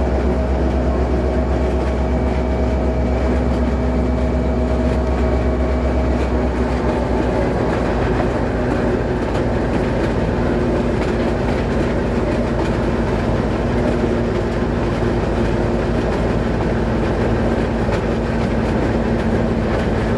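Diesel locomotive running along the track, heard from outside on the locomotive: a steady engine drone with several held tones over the noise of the wheels on the rails. The low rumble turns rougher about a third of the way in.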